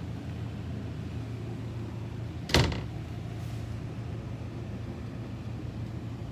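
An interior door in an RV bumps shut once, a single sharp knock about two and a half seconds in, over a steady low hum.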